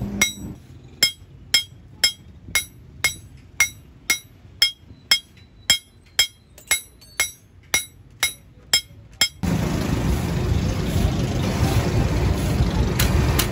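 Metal tapped with a hammer: sharp, ringing strikes at a steady two a second for about nine seconds. Then the sound switches suddenly to a steady, loud rumbling noise, with a few more taps near the end.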